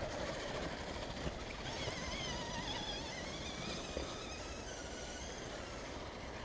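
The electric motor of an RC crawler truck whining faintly as it creeps along a muddy trail, its pitch wavering up and down with the throttle, over a low steady rumble of wind.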